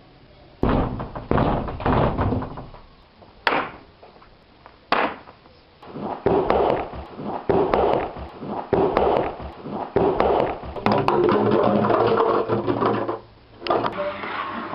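Loud knocking and thudding: a few heavy bursts, two sharp single bangs, then a long run of rapid, irregular thumps and rattles.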